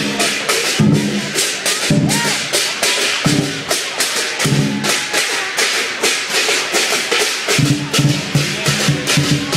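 Chinese lion/dragon dance percussion: drum and clashing cymbals beating a steady rhythm, about four strokes a second.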